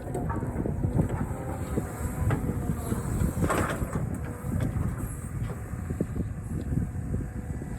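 Cat 320 excavator working, with a steady low rumble and many irregular knocks and rattles. A harsher scrape comes about three and a half seconds in.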